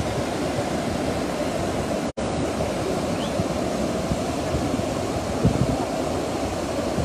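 Muddy floodwater rushing steadily down a ravine and pouring over a pipe laid across it. The sound cuts out for an instant about two seconds in.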